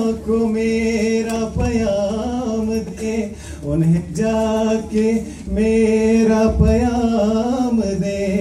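A man singing unaccompanied, in long held notes that bend and slide in pitch, with short breaks between phrases.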